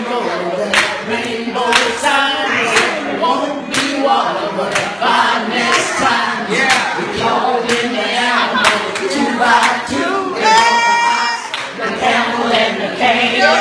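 An elderly woman singing a gospel song into a handheld microphone, with hands clapping on the beat about once a second.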